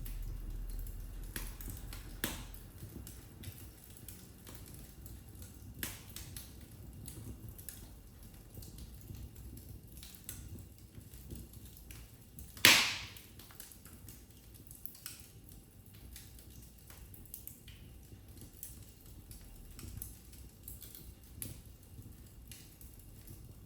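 Wood fire in a fireplace crackling: scattered sharp snaps and pops over a low rumble of the flames, with one much louder pop about halfway through.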